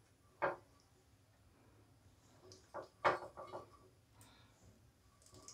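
A few faint knocks and light clinks from oiling an appe pan: the brush dabbing oil into the pan's cups and being dipped into a bowl of oil. The loudest knock comes about three seconds in.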